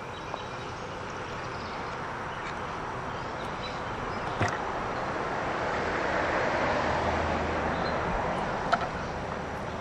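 A vehicle passing by on a road, its noise swelling slowly to a peak and fading again, with two short sharp clicks along the way.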